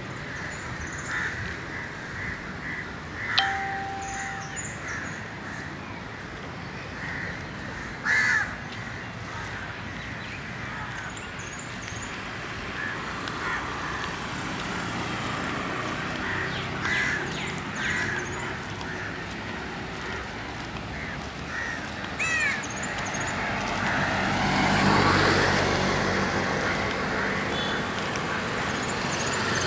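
Birds calling over and over in short calls, against steady outdoor background noise. Near the end a vehicle passes, rising and fading.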